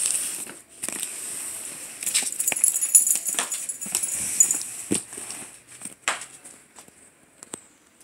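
Hands rubbing and sliding over a glossy cardboard box: scraping, rustling noise with scattered taps and knocks, dying away over the last couple of seconds.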